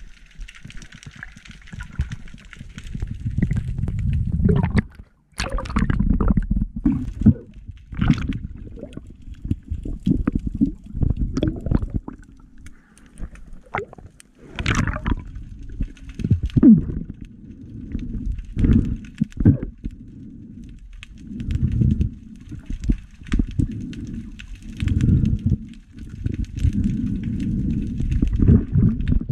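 Muffled water sloshing and gurgling around a camera held at and under the water's surface, in irregular surges every second or two, with scattered sharp clicks and knocks.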